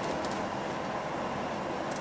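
Steady road and engine noise heard inside a moving truck's cab, with faint light ticks now and then.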